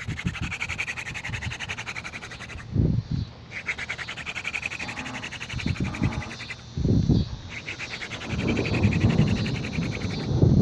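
Horseweed hand drill spun between the palms against a wooden hearth board, making a fast, rasping squeak of wood on wood while it burns in its socket. The rasping stops twice briefly, as the hands go back to the top of the drill, with short low bumps around the breaks.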